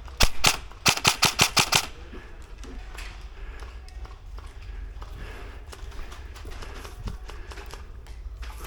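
Airsoft electric rifle, an upgraded Krytac LVOA-S, firing: two single shots, then a quick string of about eight shots.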